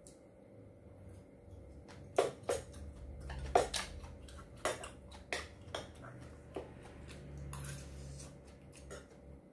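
Eating sounds: about ten sharp clicks and clinks of chopsticks and a metal spoon against a porcelain rice bowl, starting about two seconds in, with chewing between them.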